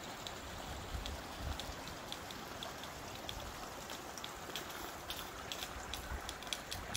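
Scattered water drops pattering over a steady hiss, the drops coming more often in the second half.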